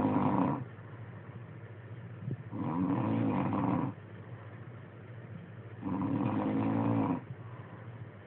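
Snoring in a regular rhythm, one long snore about every three seconds. One snore trails off just after the start, then two more follow, each about a second and a half long.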